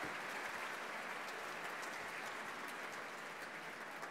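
Audience applauding, gradually fading.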